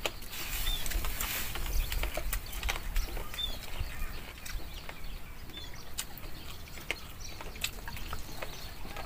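Close eating sounds: chewing with scattered sharp mouth clicks, and three short high chirps.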